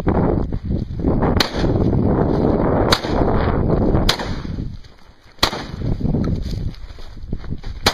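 Five sharp gunshot cracks at uneven intervals, over steady crunching and rustling of footsteps on gravel.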